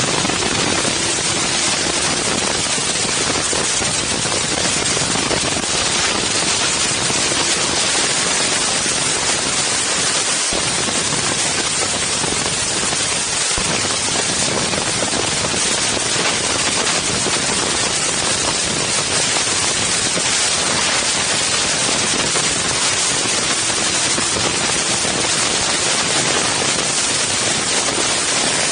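Loud, steady wind noise rushing over the microphone of an Insta360 One X camera, an even hiss with no letup.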